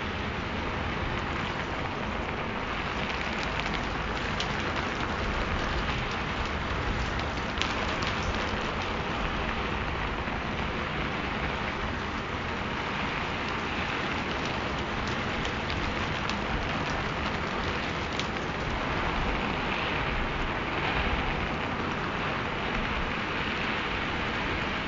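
Steady rain: an even hiss with scattered sharp drop ticks.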